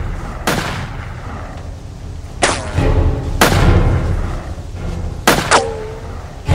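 Five handgun shots fired one at a time, each with a short echoing tail, the last two in quick succession.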